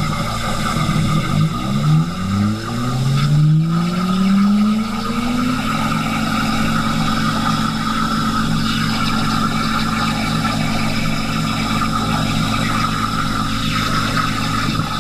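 CNC plasma cutter cutting 5/16-inch steel plate: a steady hiss from the plasma arc with a motor whine from the machine's drive. The whine slides up and down in pitch for the first few seconds, then holds steady from about five seconds in.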